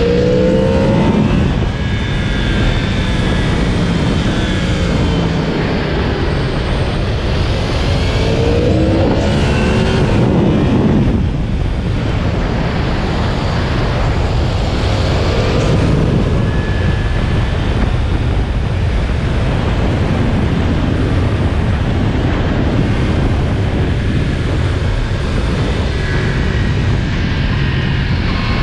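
Yamaha MT-10's crossplane inline-four engine on a stock exhaust, running under way with its pitch rising several times as it pulls up through the revs, and a brief dip about eleven seconds in.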